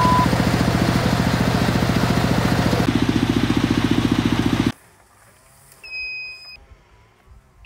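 Engine of a water-well drilling rig running with a fast, even pulse, its note changing about three seconds in, then cutting off abruptly. After a short lull, a single high electronic beep.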